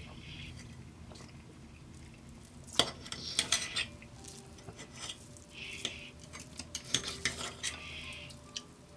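Cutlery clinking and scraping on a plate in two short spells, the first about three seconds in and the second from about five and a half seconds to near the end.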